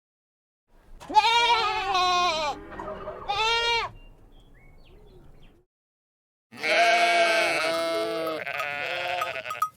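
Sheep bleating: two or three wavering bleats in the first half, then after a pause a longer bleat near the end.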